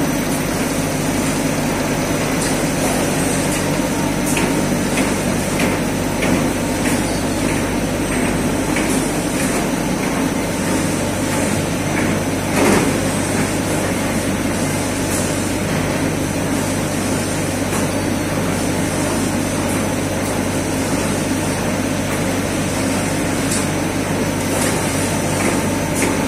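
Toilet-paper and kitchen-towel converting line running: steady machinery noise with a low hum. Light clicks repeat from the conveyors and chain carriers through the first half, and there is one louder knock about halfway through.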